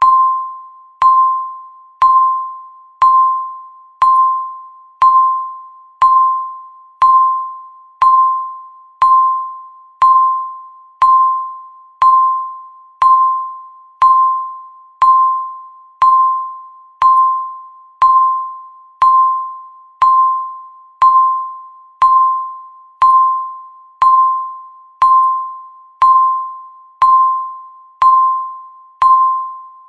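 Countdown timer beeping once a second: a steady run of identical single-pitch electronic beeps, each starting sharply and ringing out before the next.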